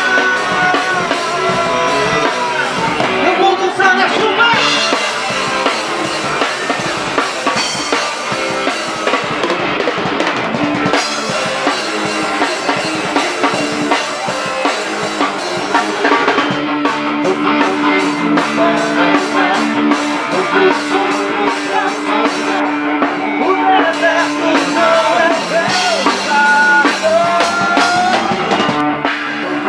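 Live band playing an upbeat gospel forró song, the drum kit prominent under guitar and lead melody lines, with a sustained note held through the middle stretch.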